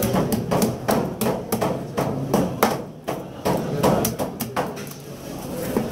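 Long kitchen knife scraping the scales off a white seabream: a quick series of short scraping strokes, about three a second, with a brief pause about three seconds in.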